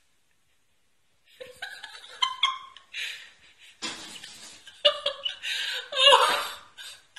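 A person laughing in bursts, starting about a second in and loudest near the end.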